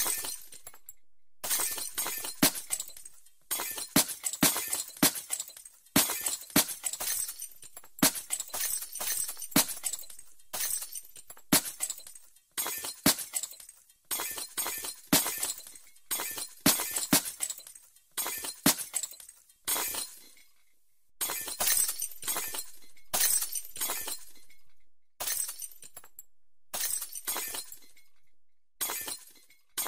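Glass smashing over and over: sharp crashes, each trailing off in tinkling, clinking shards, one after another every second or two with short breaks between.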